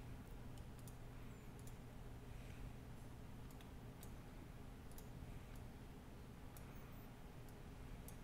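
Faint, scattered computer mouse clicks, about a dozen, over a steady low hum.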